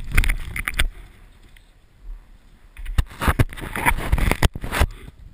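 Alpine skis scraping and chattering over snow during a fast descent: irregular bursts of rough noise, easing off for a quieter stretch from about one to three seconds in, then picking up again.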